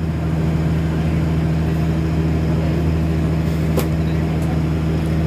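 Steady low hum of a sound system's power equipment while power amplifiers are switched on one by one, with a single sharp click of a power switch about four seconds in.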